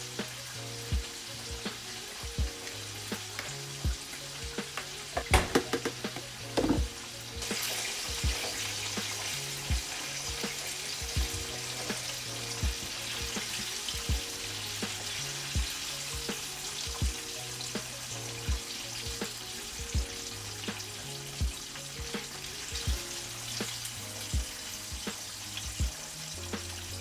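Chicken frying in hot oil, a steady sizzle that grows louder about seven and a half seconds in, with a few knocks of a utensil or pan between about five and seven seconds. Background music with a steady beat plays under it.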